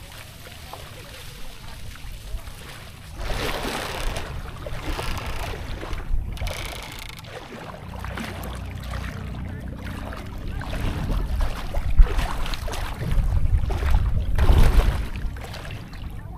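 Wind buffeting the microphone in gusty low rumbles, loudest near the end, with water sloshing and splashing around legs wading in shallow sea water.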